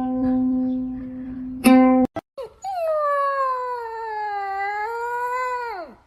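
Two plucked notes on a guitar-like string instrument, each ringing on, then after a short break a dog howling: one long call of about three and a half seconds that sags a little in pitch and drops off at the end.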